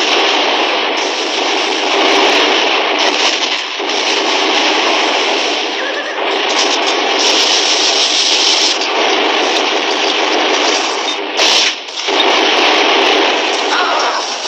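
Battle-scene din on an old mono film soundtrack: a continuous, harsh wash of gunfire and galloping horses. It breaks off for a moment near the end, then resumes.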